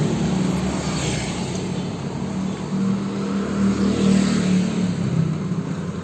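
Motor scooters passing on a narrow street, their small engines humming louder as they go by, once near the start and again around four seconds in.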